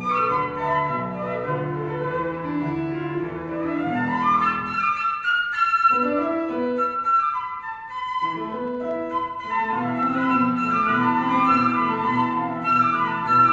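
Flute and Kawai grand piano playing a classical-style piece together, the flute carrying the melody over the piano, with a rising flute run about four seconds in.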